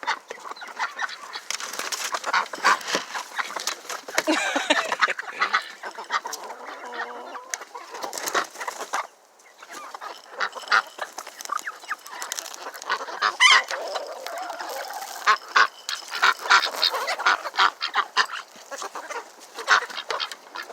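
A hungry poultry flock, chickens among them, calling and squawking in a dense jumble of short calls at feeding time. The noise drops away briefly about nine seconds in, then picks up again.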